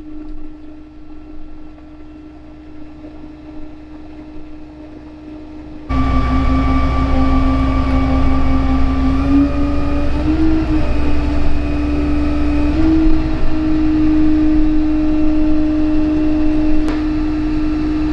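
Tow truck's engine running while a car is loaded onto it. About six seconds in it gets much louder, with a deep rumble and a hum that steps up in pitch a few times.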